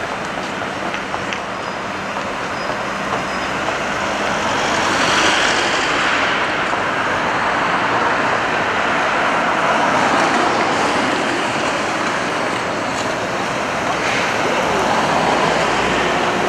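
City street traffic: cars and vans passing close by, the noise swelling each time one goes past, with the ex-Hannover streetcar running along its street tracks.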